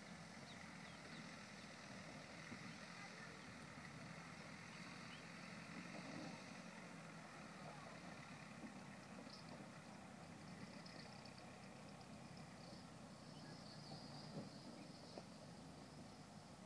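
Faint, distant engine of a VW Syncro van driving slowly up a rough dirt track, barely above quiet outdoor ambience. A faint high chirping joins in about halfway through.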